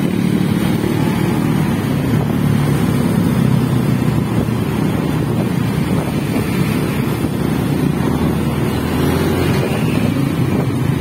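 Motorcycle in motion through traffic: steady low engine and road noise, with wind rushing over the microphone.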